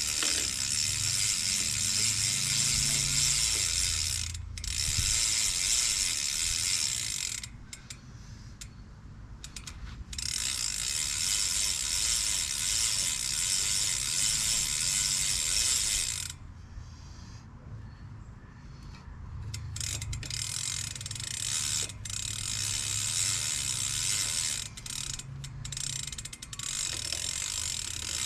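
BMX cranks turned backward to run the chain through a cleaning rag, the rear hub ratcheting in a fast, even run of clicks that stops and restarts several times.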